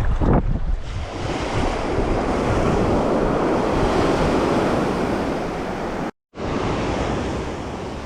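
Ocean surf washing onto the beach, with wind buffeting the microphone. The sound cuts out for a moment about six seconds in.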